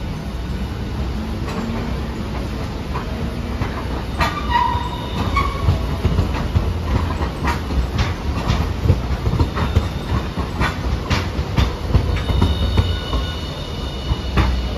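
Hiroden Green Mover APEX low-floor articulated tram pulling in close by over curved track and points: a low rumble with its wheels clicking over rail joints. Brief high wheel squeals come about four seconds in and again near the end.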